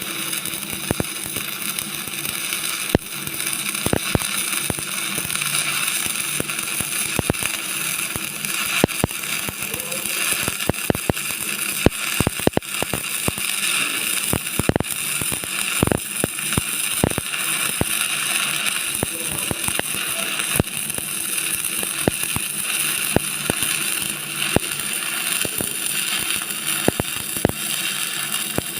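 Electric arc welding: a steady crackling hiss with irregular sharp pops and spatter.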